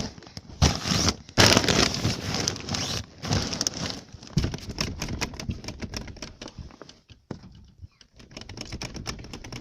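Loud rustling, scraping and crackling of things being shaken or handled close to the microphone, followed in the second half by a quick run of clicks and taps.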